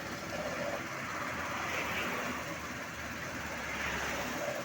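Steady roadside traffic noise from passing vehicles.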